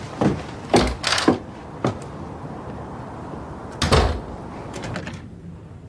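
A handful of short, sudden knocks and rustles, unevenly spaced, with the loudest and deepest one about four seconds in.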